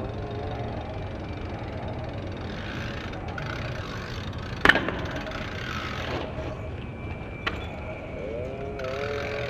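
A BMX bike landing a 180 hop on paving: one sharp smack of tyres and frame hitting the ground about halfway through, then a lighter click a few seconds later, over a steady low rumble.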